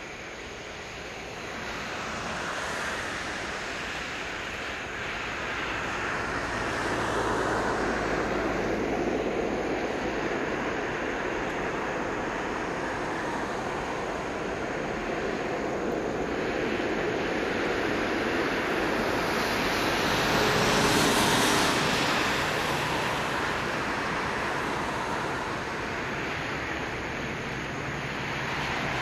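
Jet noise from a Boeing 747-400F freighter's four turbofan engines during its landing rollout. A broad rushing sound swells over the first few seconds, stays loud, and peaks about two-thirds of the way through before easing.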